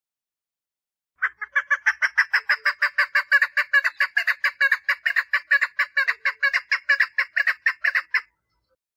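Female chukar partridge giving its mating call: a rapid, even series of short notes, about five a second, starting about a second in and running for some seven seconds before stopping.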